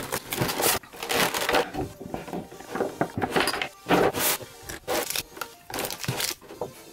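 Cardboard box and clear plastic blister insert being pulled apart and handled: irregular crackling, crinkling and scraping, with sharper cracks about a second in and again around four seconds.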